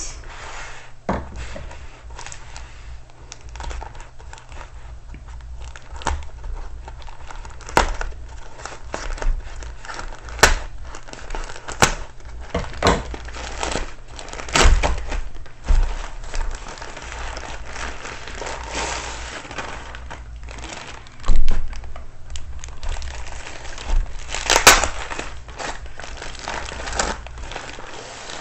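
Plastic and paper packaging of a diamond painting kit crinkling and rustling as it is unwrapped by hand, with irregular sharp crackles and a few thunks as items are handled and set down.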